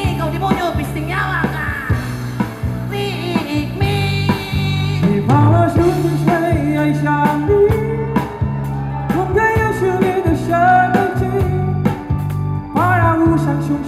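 Live rock band playing, with a sung melody over bass, guitar, keyboard and drums; the drums hit a steady beat.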